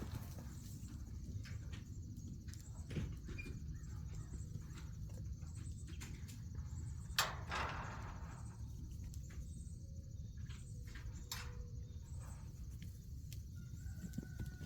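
Dairy goats moving about in a barn: scattered hoof clicks and knocks over a steady low rumble, with a louder knock about seven seconds in.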